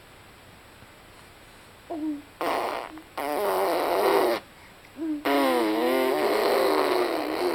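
A baby blowing raspberries, buzzing her lips with her voice sounding through them, in three bursts starting about two seconds in, the last one the longest.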